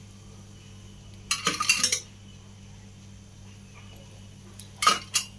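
Metal kitchen utensils clinking over a low steady hum: a short flurry of clinks about a second and a half in, and two sharp clinks near the end, while oil is being added around a dosa on the pan.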